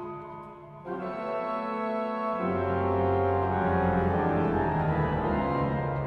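Pipe organ playing sustained chords. The chord changes about a second in, and deep pedal notes come in about two and a half seconds in, swelling into a loud, full chord.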